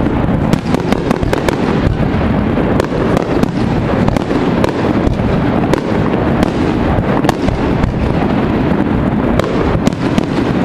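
Aerial firework shells bursting in a dense, unbroken barrage of booms and many sharp cracks.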